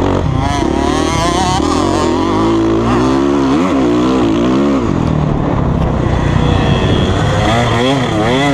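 Dirt bike engines heard from on board, revving up and dropping off again and again with throttle and gear changes. About five seconds in the engine note changes to that of the 2019 KTM 125 SX two-stroke, fitted with a 150cc kit and FMF exhaust, revving up and down.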